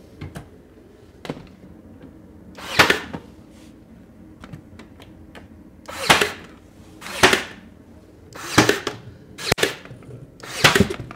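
Ryobi brad nailer firing brads through quarter-round shoe molding into the baseboard: about six sharp shots, irregularly spaced a second or so apart, with faint handling clicks between them.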